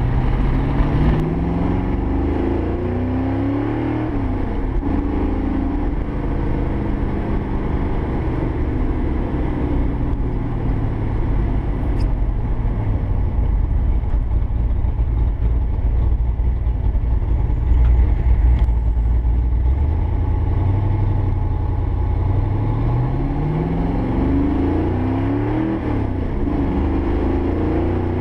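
1965 Mustang fastback's 392 stroker V8 pulling the car along the road, its revs rising as it accelerates near the start and again about three-quarters of the way through, with steady cruising in between.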